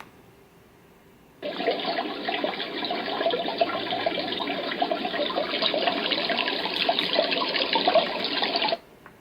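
Dreamegg D3 white noise machine playing a running-water sound through its small speaker. It switches on abruptly about a second and a half in and cuts off sharply near the end.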